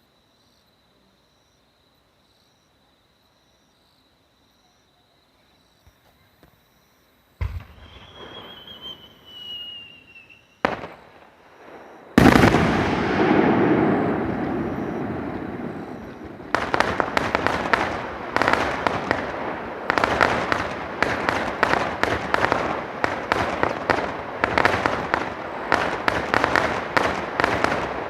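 Fireworks set off close by. After a quiet start come a sharp bang, a falling whistle and a second bang, then a very loud burst that fades slowly, followed by dense, rapid crackling to the end.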